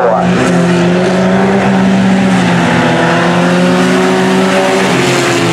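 Engines of several small pickup race trucks running together on a dirt oval, a steady engine drone whose pitch eases slightly downward near the end.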